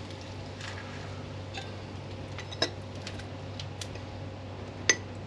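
Fish pieces and a dish being handled: a few light taps and knocks over a steady low hum, then near the end a sharp ringing clink of the dish.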